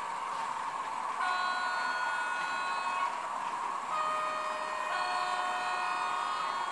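Sound-equipped model of a CC 65505 diesel locomotive running with a steady engine hum from its onboard speaker. It sounds its horn twice: a held blast about a second in, then a second blast from about four seconds in that steps up in pitch partway through, like a two-tone horn.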